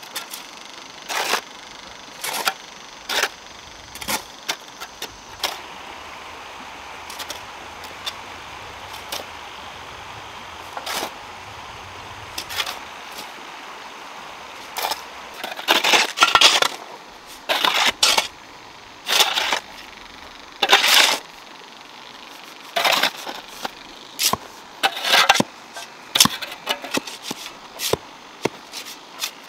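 Steel shovels scraping and scooping into a pile of sand and cement being mixed dry: short gritty scrapes every second or so, sparse at first and coming faster and louder from about halfway through.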